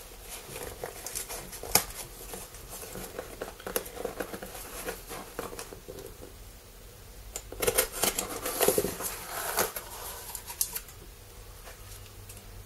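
Cardboard postal box being handled and opened: irregular scratching, crinkling and rustling of cardboard and paper, busiest and loudest from about eight to ten and a half seconds in.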